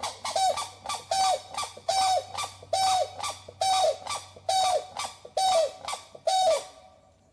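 A bird calling in a steady series, about eight short buzzy calls a little under a second apart, each dropping in pitch at its end.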